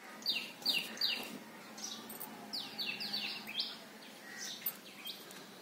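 Birds chirping: short high calls that fall in pitch, coming in quick runs of three or four, with quieter calls near the end.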